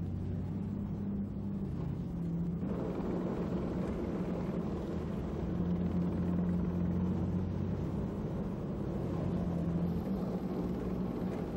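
Steady low engine rumble with a droning hum. The noise grows fuller about two and a half seconds in.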